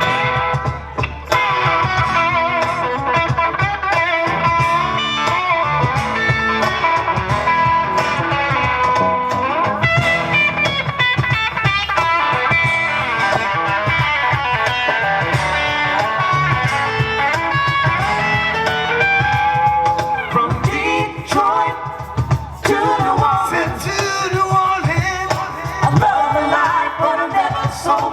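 Live rock band playing through a loud PA, led by electric guitar with a bluesy feel and a steady drum beat.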